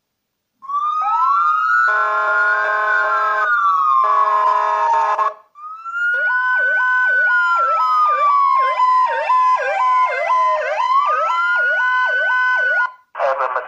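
Electronic police-style siren played by a scale model car's built-in sound module. It opens with a rising and falling wail, overlaid twice with a steady horn-like tone. After a short break comes a fast repeating yelp, about two and a half cycles a second, layered over a slow wail, which cuts off just before the end.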